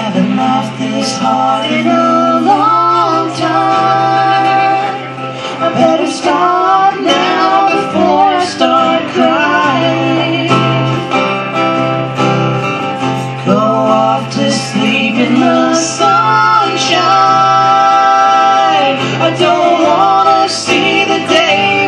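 Live acoustic duet: a steel-string acoustic guitar played under a man's and a woman's voices singing together.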